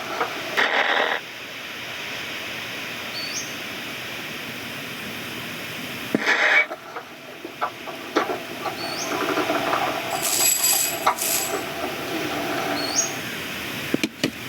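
Film sound effects: a series of short knocks, rustles and clatters over a steady hiss, with louder noisy bursts near the start and about six seconds in.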